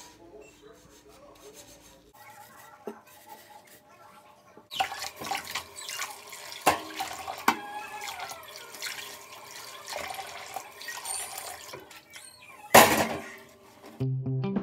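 Washing up by hand at a kitchen sink: from about five seconds in, tap water runs while dishes and pans knock and clink, with a sudden loud clatter near the end.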